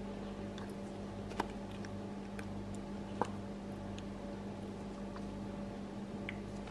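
Soft squish and a few faint clicks of guacamole being squeezed from a plastic squeeze bottle, over a steady low electrical hum.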